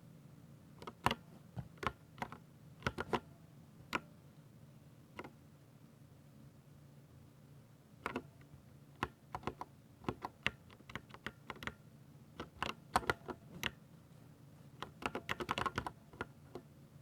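Typing on a Ducky 60% mechanical keyboard with silver switches: irregular keystroke clicks in short bursts with pauses, ending in a quick flurry of keystrokes near the end.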